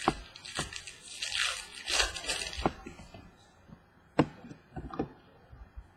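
A pack of trading cards being opened by hand: crinkling and tearing of the wrapper for the first few seconds, then a few sharp taps and clicks as the cards are handled.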